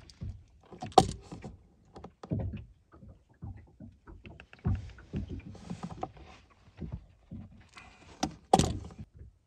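Wire crimping tool and a butt connector being worked onto a wire by hand: scattered small clicks and rustling, with two sharper clicks about a second in and near the end.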